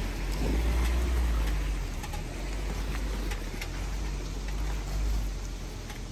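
Suzuki Jimny off-road vehicle driving up a rough track, its engine a steady low rumble, with scattered sharp clicks and crackles of stones under the tyres.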